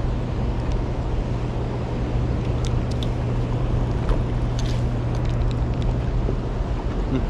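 Steady rushing noise of moving water and wind under a constant low hum, with a few faint light clicks about halfway through.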